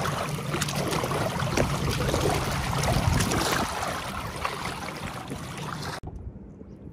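Lake water rushing and splashing along the hull of a moving boat, with a hand trailing through the wake. It eases off about four seconds in and cuts off suddenly near the end, leaving a much quieter background.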